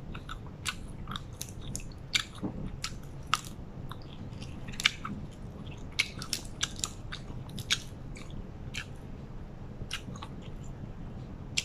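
A person chewing food close to the microphone, with many small irregular clicks and smacks of the mouth and the odd crunch.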